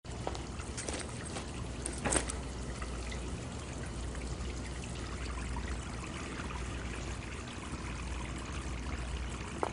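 Water running steadily from a tap into a washbasin, with a few light clicks in the first couple of seconds.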